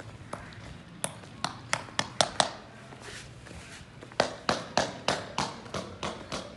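Two quick runs of sharp taps: about six in the first two and a half seconds, coming closer together, then a steadier run of about eight, some three a second, from about four seconds in.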